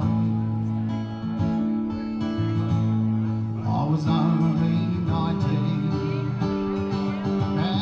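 Acoustic guitar music, strummed, with long held notes.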